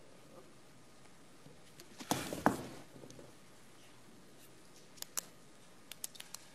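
Pens being handled and writing on paper at a desk: a short scratchy clatter about two seconds in with one sharp click, then a few light clicks near the end.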